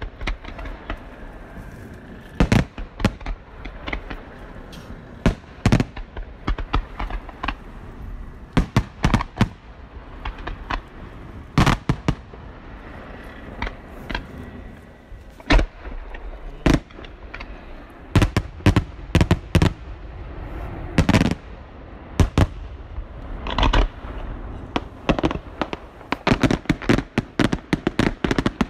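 Aerial fireworks display: shells and comets bursting in a stream of sharp bangs at irregular intervals, with a faster run of reports near the end.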